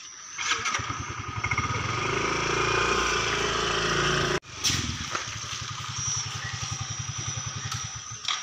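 Small motor scooter engine coming in about half a second in and growing louder as the scooter pulls away with two riders. It cuts off abruptly a little past halfway, then runs steadily again as the scooter rides along.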